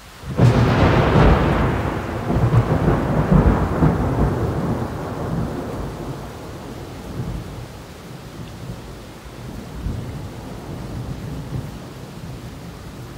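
A thunderclap about half a second in: a sudden crack that rolls into a long rumble, fading over several seconds. Steady heavy rain underneath.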